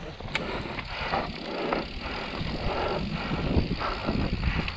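Mountain bike riding down a dirt singletrack: tyres rolling over the dirt, with a few sharp clacks and rattles from the bike over the bumps.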